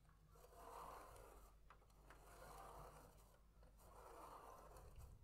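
Spirograph drawing: a fineliner pen tip scraping across paper as the clear plastic gear wheel is pushed round inside the toothed ring. It comes in three faint strokes about a second long each, with a couple of light plastic clicks between them.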